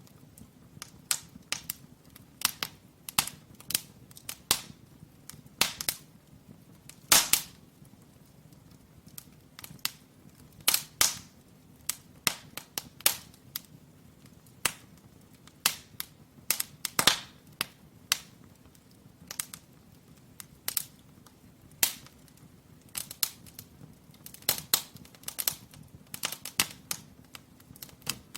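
Firewood burning in a brick fireplace, crackling with irregular sharp pops, sometimes several close together, over a faint steady low hum.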